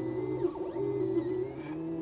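Background electronic music: held low notes changing in steps, with swooping tones that rise and fall about once a second.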